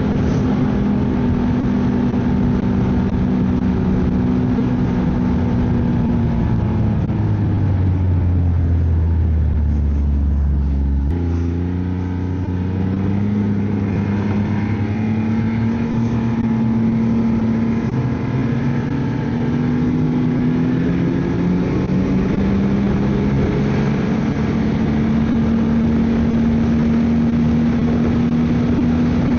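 Ski-Doo snowmobile engine running on the trail. Its pitch falls as the sled slows, changes sharply about eleven seconds in, then climbs steadily as it speeds back up.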